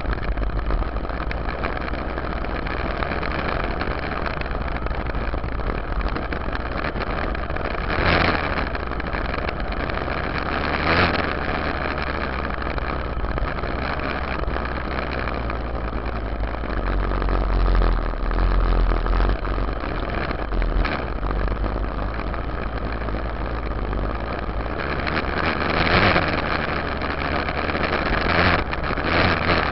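Yamaha YZ dirt bike's engine running while the bike is ridden over a dirt and gravel track, heard from a camera on the rear fender, with a dense rumble and several brief louder swells.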